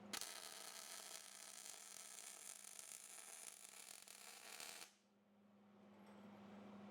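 A steady hiss that starts abruptly and cuts off about five seconds in, with a low steady hum heard once it stops.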